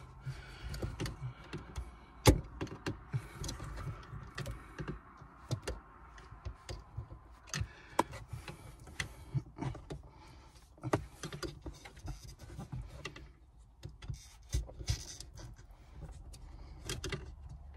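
Irregular small clicks, taps and knocks of a hand tool and parts being worked at a manual car's shifter base while a bushing bolt is loosened. A sharper knock comes about two seconds in and another about eight seconds in.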